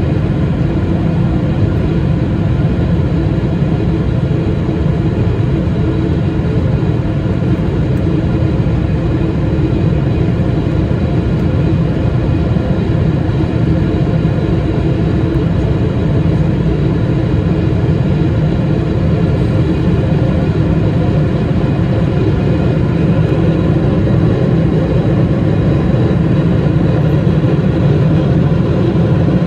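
Boeing 777-300ER's GE90-115B turbofans at climb power, heard inside the cabin over the wing: a deep, even noise with a faint steady whine above it.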